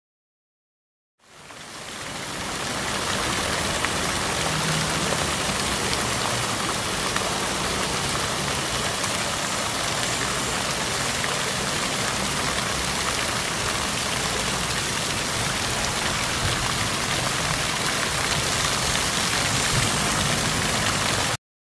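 Steady rush of falling, splashing fountain water. It fades in over about a second and cuts off abruptly near the end.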